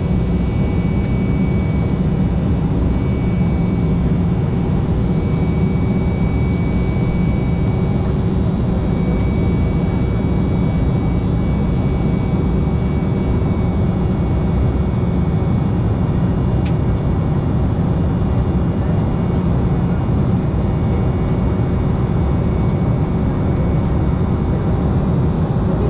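Cabin noise of an Embraer 195LR in flight, heard inside beside its General Electric CF34-10E turbofan: a steady low rush of engine and airflow noise with a few steady whining tones above it.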